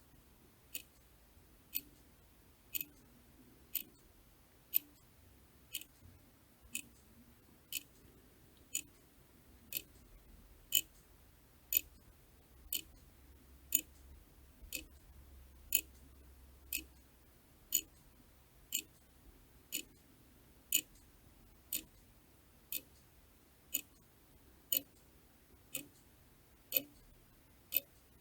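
Clock ticking steadily, about one sharp tick a second, some ticks a little louder than others.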